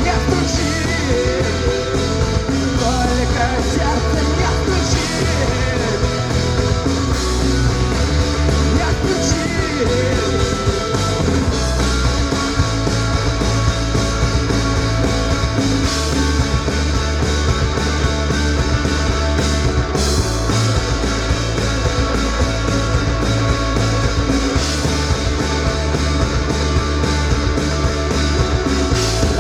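Rock band playing a song live, loud and steady.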